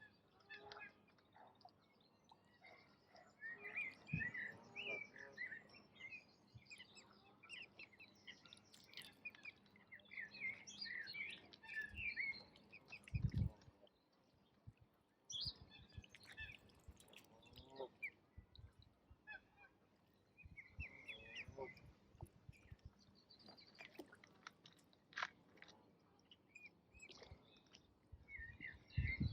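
Ducks calling among other birds' quick high chirps, in scattered bursts. A few low thumps stand out, the loudest about halfway through.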